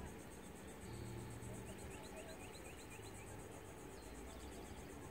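Faint outdoor ambience: a high, evenly pulsing insect trill throughout, and about two seconds in a bird sings a quick run of five or six short notes, each sliding down in pitch.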